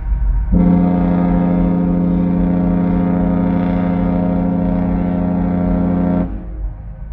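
A Disney cruise ship's standard horn sounds one long, steady blast of about six seconds: a single low note rich in overtones that starts about half a second in and cuts off sharply. A low rumble runs underneath.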